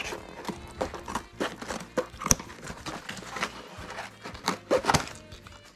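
Scissors snipping and a paper mailing envelope and cardboard box rustling and crinkling as a package is cut open and the box is slid out, in a run of short sharp clicks and rustles over quiet background music.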